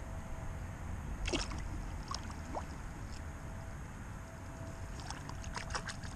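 Small splashes and sloshing of pond water as a bass is released by hand at the bank, the clearest splash about a second in and a few more near the end. A low rumble of wind on the microphone runs underneath.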